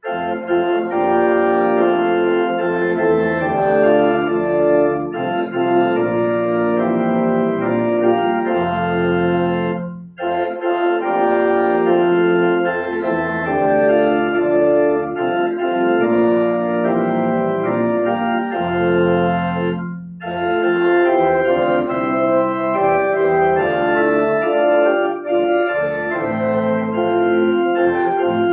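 Organ playing a hymn in sustained chords, pausing briefly between phrases about 10 and 20 seconds in.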